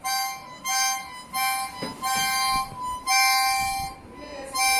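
Ten-hole harmonica (mouth organ) blown in a run of about seven short chords, each held briefly with small breaks between, the longest a little after the middle.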